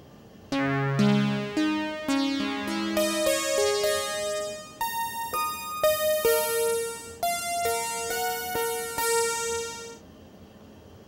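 Behringer DeepMind 12 polyphonic synthesizer played by hand: a phrase of chords and single notes, each with a sharp start and bright overtones, low at first and moving higher. It starts about half a second in and stops about a second before the end.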